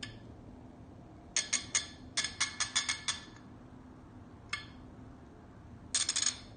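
Metallic clicks of a TOPTUL 3/4-inch drive 120-tooth ratchet being worked: three clicks about a second in, then a run of about seven quick clicks, a single click, and a fast cluster near the end.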